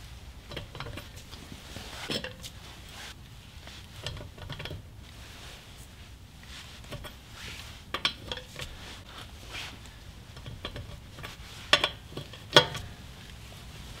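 Socket and breaker bar clinking against the lug nuts of a steel wheel as the nuts are tightened one by one: a few scattered sharp metal clicks between quiet stretches, the loudest near the end.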